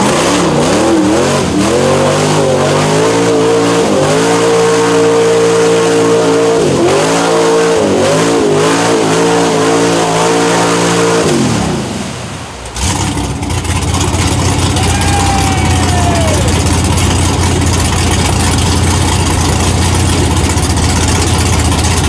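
A mud truck's LS V8 revs hard at high rpm, the pitch climbing and falling as the throttle is worked while it digs through deep mud. About 11 seconds in the revs drop away, and it settles into a steady, rough low running.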